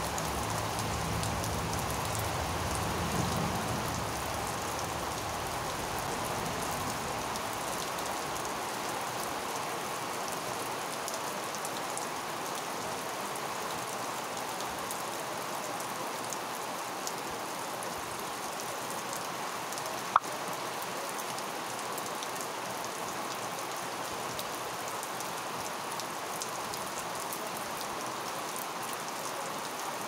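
Steady rain falling on leafy garden plants, an even hiss of drops. A low rumble fades out within the first few seconds, and a single sharp click stands out about twenty seconds in.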